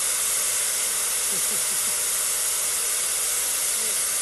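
Compressed air hissing steadily out of the open drain valves of two truck air tanks, carrying a fine spray of water: the tanks are being drained of the moisture that built up in them.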